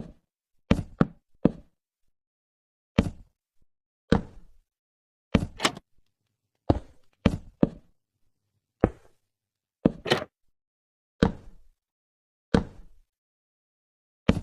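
An irregular series of sharp knocks or thuds, roughly one a second and sometimes two in quick succession, each dying away quickly.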